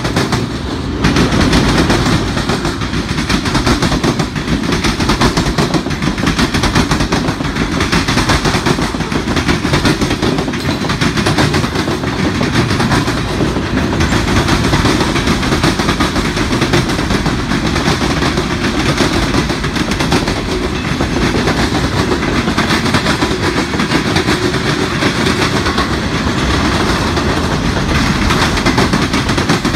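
Freight cars rolling past loudly and steadily, their steel wheels clattering rapidly over the rail joints.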